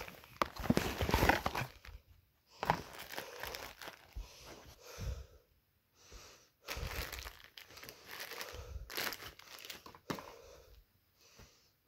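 Plastic and cardboard packaging crinkling and rustling in short, irregular bursts as it is handled and opened, loudest in the first two seconds.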